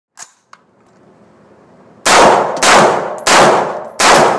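Four loud gunshots from a rifle, starting about two seconds in and spaced a little over half a second apart, each ringing out with a metallic tail. A couple of faint clicks come before them.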